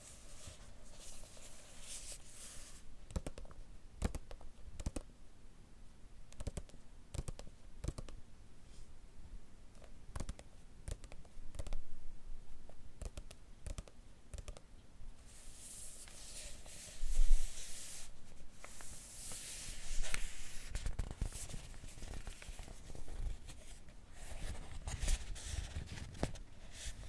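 Pages of a bunko paperback being turned by hand, close up: several papery swishes with soft taps and clicks of the paper between them.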